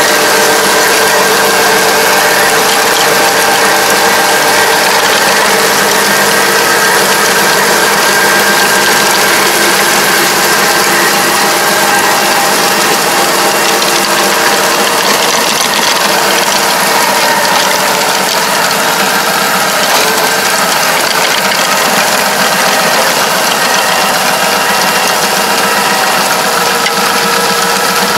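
Kobashi Gaia tractor-mounted levee-coating machine running steadily, its rotor and drum churning and packing the soil of a rice-paddy levee, over the tractor's engine. A loud, unbroken mechanical clatter with a few steady whining tones.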